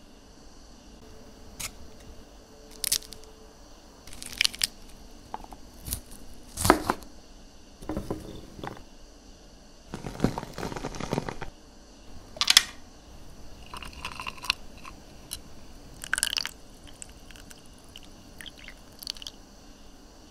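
A string of short drink-making sounds: sharp taps and clinks, and about ten seconds in a stretch of about a second and a half of crunching and squishing as pomegranate arils are crushed in a glass.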